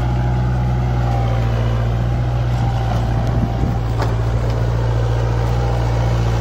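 Kubota MU4501 tractor's diesel engine running steadily under load while dragging a rotavator and a rope-towed disc harrow over tilled soil.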